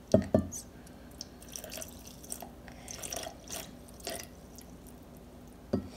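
Milk poured from a glass into a Magic Bullet blender cup of ice: trickling, dripping and splashing over the ice, with a couple of sharp knocks just after the start.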